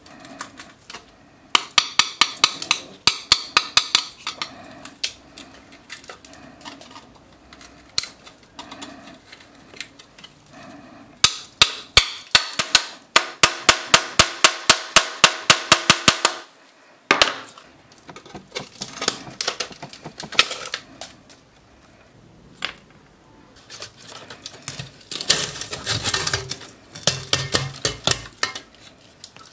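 Hammer tapping on the side of a rusty steel M42 helmet shell near the liner rivets: runs of sharp metal strikes, the fastest about five a second in the middle, with the shell ringing under the blows. Near the end, scraping and clinking of rusted metal as the liner band comes loose.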